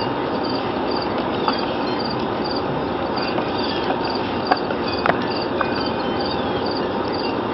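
Insects chirping steadily in a regular pulse, about two a second, over a constant outdoor hum, with a few brief sharp cracks of a dog's teeth working on a deer skull.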